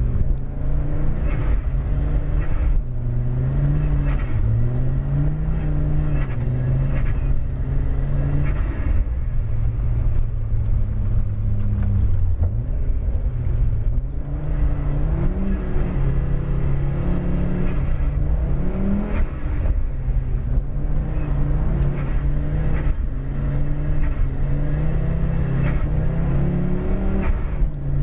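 Audi car engine driven hard on a snowy road, its pitch rising and falling over and over as it revs up and backs off, over a steady low rumble.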